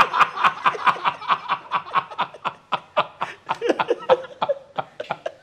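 Two men laughing heartily at a joke, in quick repeated pulses of laughter that gradually die down.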